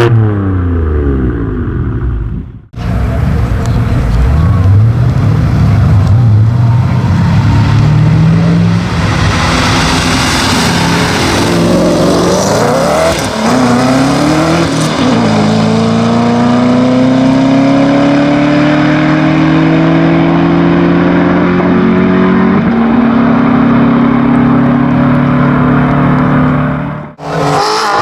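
A BMW M4 being revved, the revs falling away, then two cars, a tuned BMW M235i and a Chevrolet Camaro, launching side by side and accelerating hard. Their engine note climbs through several gear changes over a long run.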